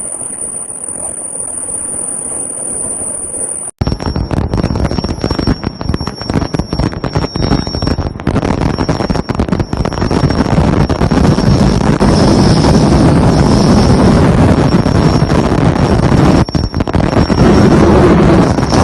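Ultrasonic quilting machine running: loud, dense mechanical clatter with a steady high-pitched whine. About four seconds in the sound cuts from a quieter steady hum with a higher tone to the louder clatter.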